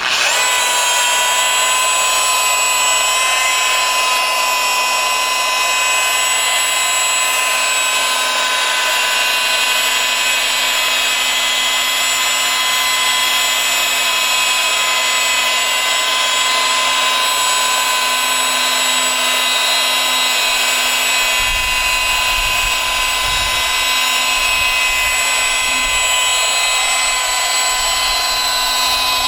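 Electric rotary polisher switching on and running at steady speed, buffing compound into a boat's gel coat, a constant motor whine with a low rumble added about two-thirds of the way in.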